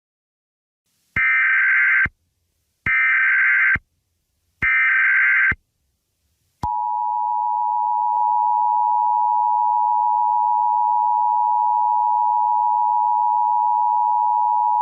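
Emergency Alert System tones: three identical bursts of SAME header data, each just under a second long and about a second apart, then the steady two-tone EAS attention signal for about eight seconds, cutting off abruptly.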